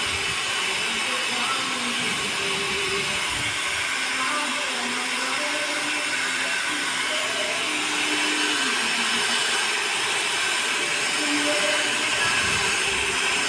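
Handheld hair dryer blowing steadily on wet hair, getting slightly louder about eight seconds in.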